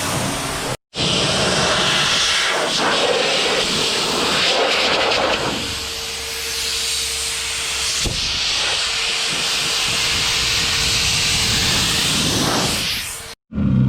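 Steady, loud hissing noise that cuts out briefly about a second in and again near the end; a faint steady hum runs underneath in the second half.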